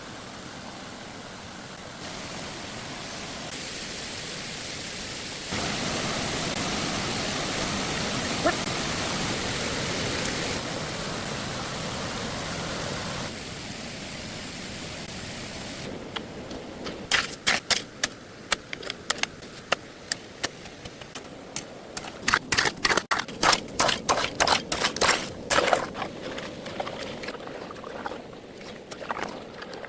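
Steady rushing water, like a waterfall or stream, jumping up and down in level in steps. From about halfway through, a run of sharp clicks and taps comes in irregular clusters and is the loudest sound.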